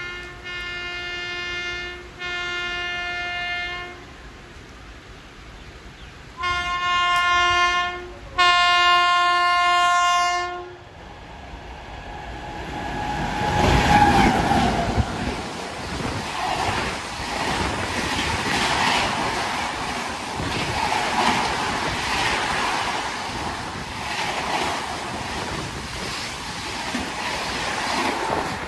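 WAP-7 electric locomotive's horn sounding four long, steady blasts in two pairs as the Duronto Express approaches at 130 km/h. The locomotive then rushes past about 14 s in, followed by the coaches at speed, with repeated wheel clatter over the rails.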